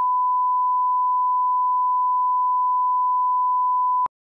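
Steady 1 kHz line-up reference tone played over SMPTE colour bars, one unbroken pitch that cuts off abruptly with a click about four seconds in.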